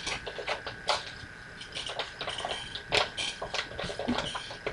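A hand rubbing, tapping and knocking on a computer close to its built-in microphone: a string of irregular clicks and knocks, the loudest about three seconds in, over a steady faint high whine.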